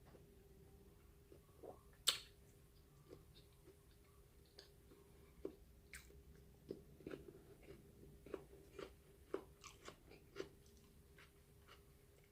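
Faint close-up chewing and mouth sounds of a person eating, in irregular small clicks and smacks, with one sharper click about two seconds in.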